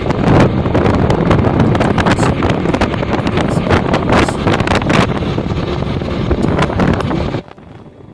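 Wind buffeting the microphone over road noise from a moving vehicle: a loud, rough rush with constant flutters. It cuts off suddenly near the end.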